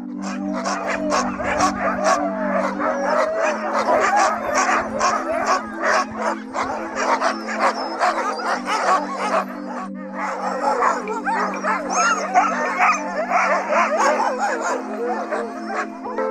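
A yard full of Alaskan sled dogs barking and yelping all at once in many overlapping short calls, thinning briefly about ten seconds in and then picking up again, over background music of steady held low chords.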